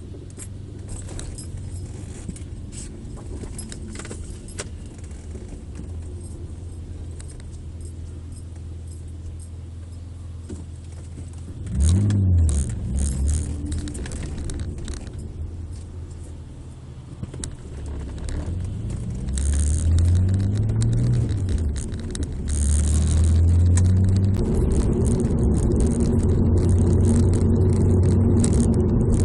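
BMW E46 330Ci's straight-six engine heard from inside the car: running low and steady, then pulling away with the engine pitch rising and falling through gear changes, and running louder and steadier near the end. The owner reports an unidentified knock under low-rpm acceleration in second gear.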